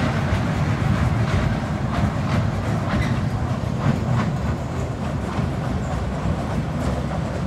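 Small children's ride train running along its narrow rail track: a steady low rumble with repeated clacks of the wheels on the rails.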